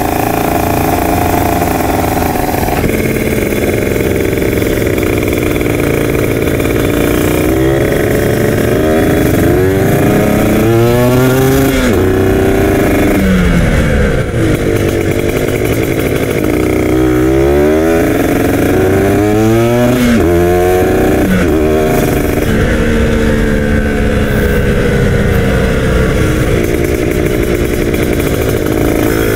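Kawasaki Ninja RR 150 two-stroke engine riding in traffic, revving up through the gears in rising climbs, in two runs about a quarter of the way in and again past the middle, steadier in between. Wind noise rushes over the microphone.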